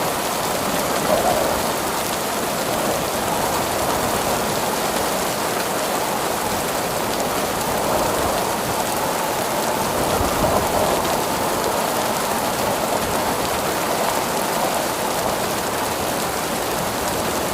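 Steady rain falling, an even hiss with no breaks or distinct claps.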